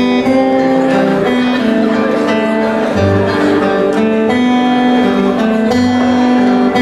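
Acoustic guitar being strummed, with a melody of long held notes over it.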